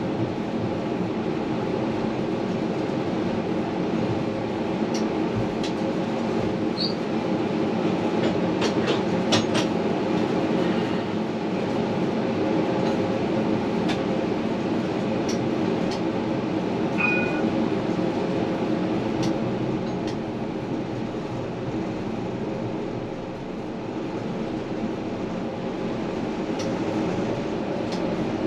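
Tram running along its line, heard from inside at the front: a steady hum of motors and rolling wheels on rail. A cluster of sharp clicks comes about eight to ten seconds in, as the wheels pass over rail joints or a crossing.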